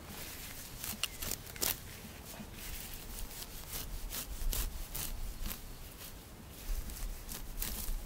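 Small serrated chive sickle cutting and tearing through tall grass by hand, in irregular short crisp strokes about two a second.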